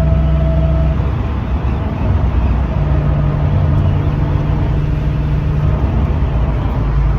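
A car running with a low rumble and steady whining tones. One whine stops about a second in, and another holds from about three to six seconds in. The owner ties this whining noise to the car's Quick Performance rear end and three-link rear suspension.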